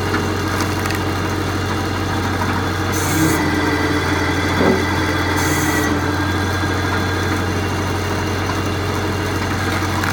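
Vertical hydraulic log splitter running with a steady low hum. There are two short hisses, and about halfway through a single sharp crack as a log splits.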